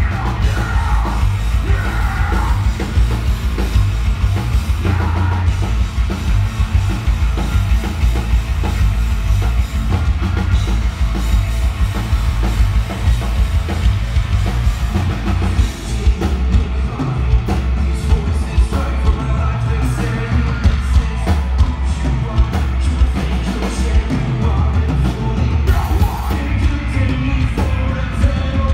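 Live heavy rock band playing loud: a pounding drum kit and distorted guitars and bass, with shouted and sung vocals. It is picked up on a phone's microphone, so the low end is heavy and crowded.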